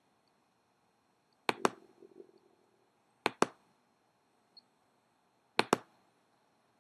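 Computer mouse clicks: three sharp clicks about two seconds apart, each a quick double tick.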